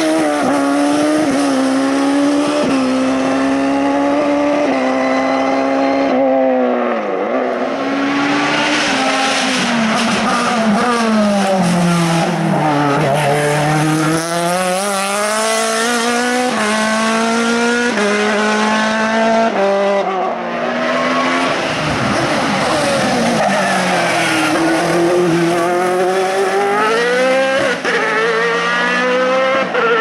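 Single-seater racing car engines at high revs, one car after another, each note climbing through a gear and dropping in steps at the upshifts. A car fades away midway and the next one's note dips, then climbs steadily near the end as it approaches.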